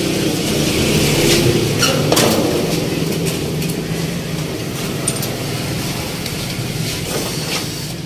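A steady mechanical hum with scattered knocks and clanks as the metal parts of a window air conditioner are handled.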